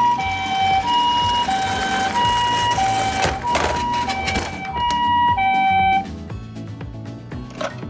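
Japanese-style two-tone ambulance siren, alternating between a high and a low note ("pee-po") about every half second, cutting off suddenly about six seconds in. Background music plays throughout, with a brief rushing noise midway.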